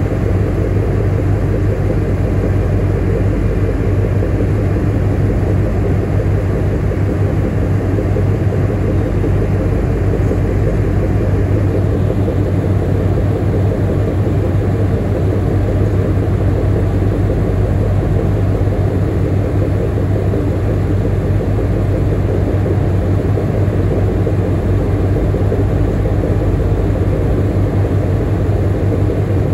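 Cruise ship Marella Explorer's machinery running as it manoeuvres off the quay: a loud, steady low rumble with a deep even hum that does not change.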